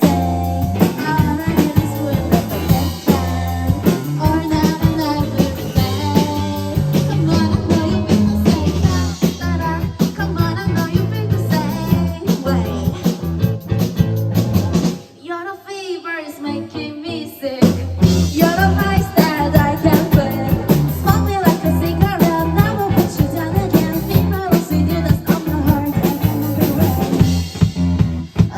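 Rock band playing a song with drum kit, bass and guitar. About halfway through, the drums and bass drop out for a couple of seconds, then the full band comes back in.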